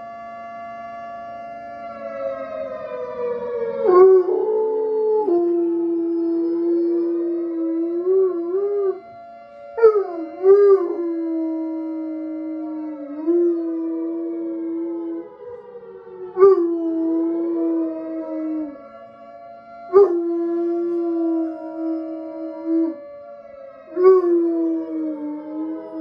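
Bloodhound–coonhound mix howling along with a tornado siren played through a phone speaker. The siren's steady tone falls slowly in pitch, and about four seconds in the dog joins with long, wavering howls, about five of them, each starting sharply.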